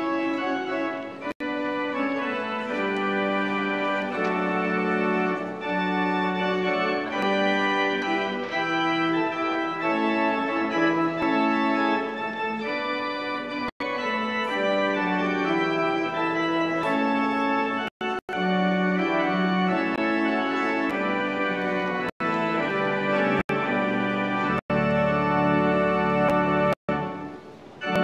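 Organ music playing slow, held chords, with deep bass notes coming in near the end. The sound cuts out for an instant several times.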